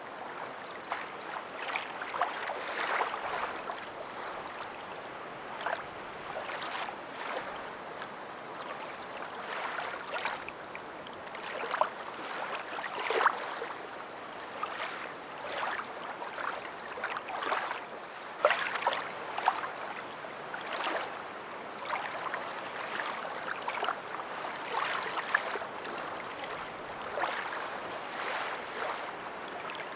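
Water sloshing and splashing, with frequent irregular small splashes over a steady wash.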